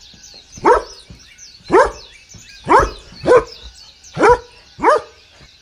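A dog barking six times in short, separate barks, two of them in quick pairs, with faint bird chirping behind.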